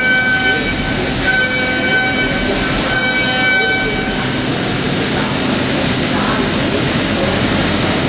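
Ceramic end mill high-speed milling an Inconel turbine blade on a Starrag LX 251 machining centre: a whine of several steady tones over a steady rushing noise, coming in three bursts in the first four seconds as the cutter engages, after which only the steady machine noise goes on.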